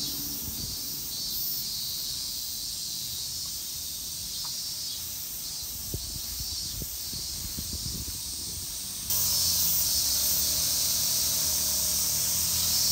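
Cicadas calling in the trees: a steady high hiss with a faint pulse, louder from about nine seconds in.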